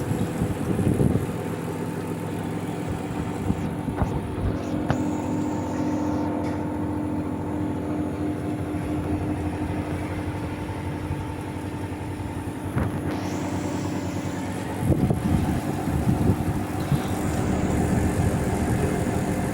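Panasonic inverter air conditioner running with a steady hum, a low rumble under it that swells about fifteen seconds in.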